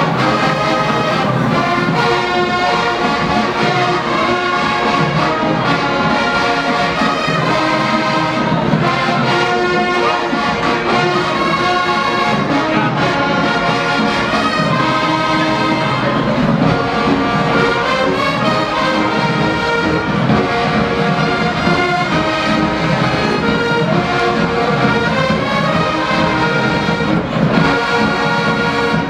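Marching band playing a loud, continuous brass-led tune, with trumpets and trombones to the fore.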